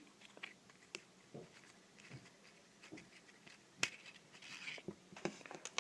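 Faint small clicks and taps of handling a Zippo lighter's metal insert while its flint-spring screw is unscrewed by hand, with one sharp click a little before four seconds in and a short rustle after it.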